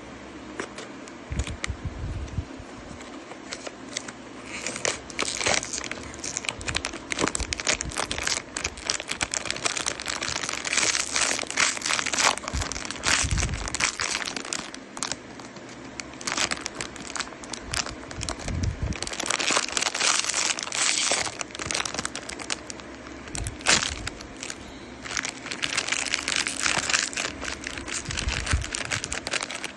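Sonny Angel blind-box packaging being handled and opened by hand: the wrapper crinkles in several bursts, with scattered light clicks and a few soft thumps in between.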